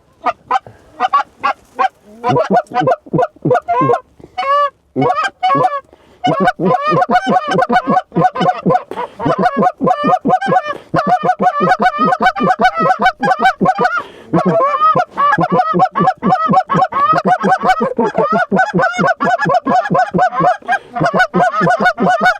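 Hunters blowing goose calls at Canada geese (honkers) that are setting their wings toward the decoys: short honks and clucks, scattered at first, then about six seconds in a fast, nearly unbroken run of several honks a second.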